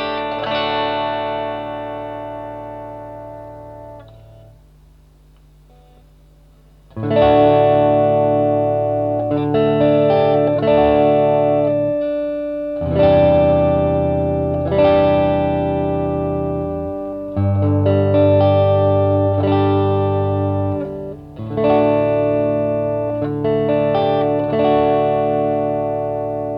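DIY Telecaster-style electric guitar strumming chords and letting each one ring out, over a backing track with sustained bass notes. The first chord dies away to a quiet lull, and the strummed chords come back in about seven seconds in.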